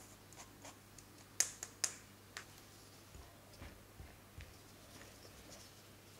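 Kitchen utensils tapping against a glass mixing bowl: three or four sharp light clicks between about one and a half and two and a half seconds in, followed by a few faint ticks.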